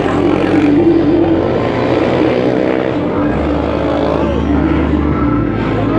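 Motorcycle engines revving up and down as riders do wheelies, over a steady low drone.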